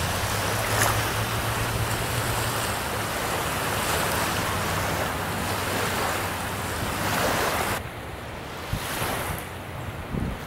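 Small lake waves washing onto a sandy beach, with wind blowing over the microphone in gusts. About eight seconds in, the sound drops to quieter wind.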